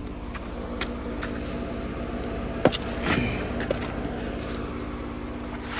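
Jeep Comanche pickup's engine idling steadily, waiting on a rock obstacle. Several short knocks of rocks being set down, the sharpest about two and a half seconds in.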